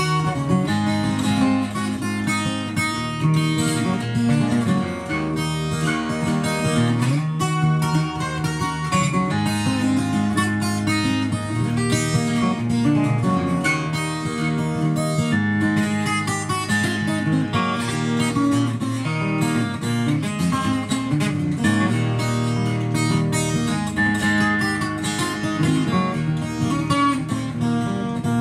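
Twelve-string acoustic guitar (Lakewood J-32-12 Custom, tuned a half step down) fingerpicked in a dense, unbroken run of notes over a steady bass line.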